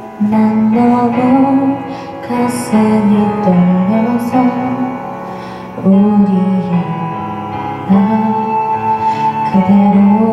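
Woman singing a Korean song into a karaoke microphone over the karaoke backing track, in a handful of long, held phrases.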